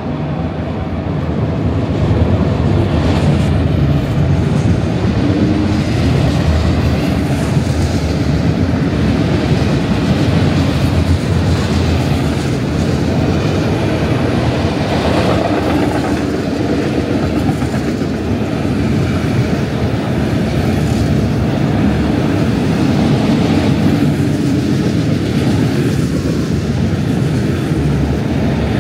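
Moving train running on the rails: a steady, loud noise that swells about two seconds in and then holds.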